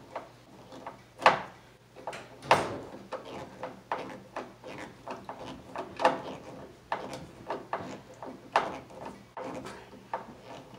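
Hand screwdriver driving a screw through a plastic electrical box into a wooden ceiling joist: irregular creaks and clicks as the screw is turned into the wood, a few of them louder and sharper.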